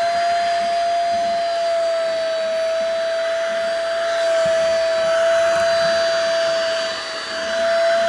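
Baseus A2 cordless handheld car vacuum running while its crevice nozzle is worked over carpet: a steady, high-pitched motor whine over a rush of air, really loud for so small a vacuum.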